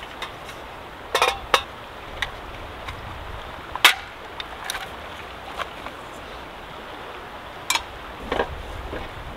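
Metal clinks and knocks of a small propane camp stove being set up: a canister handled and set down on stones and a frying pan placed on the burner. About eight sharp knocks spread out, the loudest about four seconds in, over a steady hiss of flowing river water.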